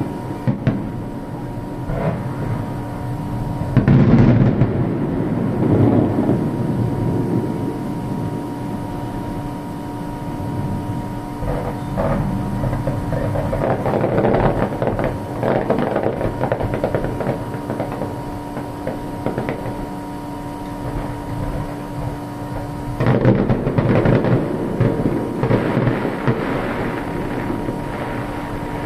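Fireworks shells bursting, rumbling booms like thunder in three clusters, over a steady hum.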